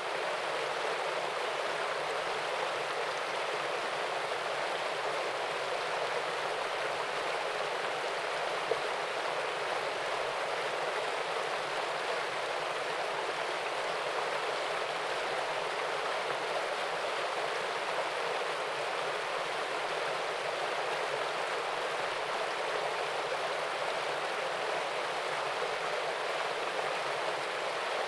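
Small waterfall and stream: water spilling and running in a steady, unbroken rush.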